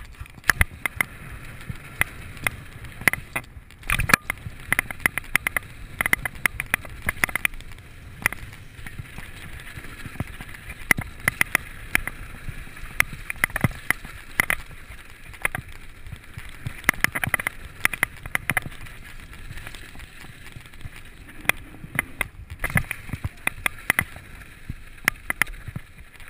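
Slingshot Wookie downhill mountain bike rolling fast over a loose gravel trail: a steady crunch of tyres on gravel with many sharp rattles and knocks from the chain and frame over the bumps.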